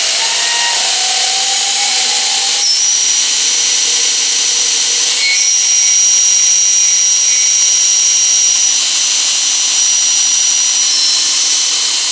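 Belt grinder's 2.2 kW electric motor running on a frequency inverter, with a steady hiss and a high-pitched whistle over it. The whistle jumps in pitch a few times as the speed is changed. The owner suspects the inverter is the cause of the whistle.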